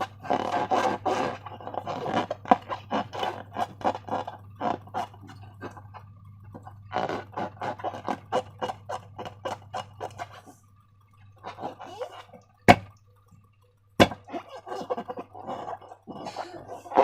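Slime being squeezed and worked by hand, giving a dense run of sticky clicks and crackles, with two sharp loud clicks near the end.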